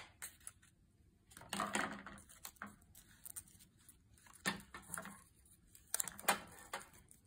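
Quiet handling of an insulin pump infusion set and its plastic blister pack: a few scattered rustles and light plastic clicks as the pack is opened and the tubing connector is taken out.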